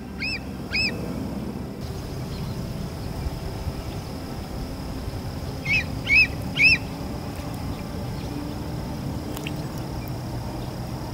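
Juvenile bald eagle calling: short, high, chirping notes, two right at the start and a quick series of three about six seconds in.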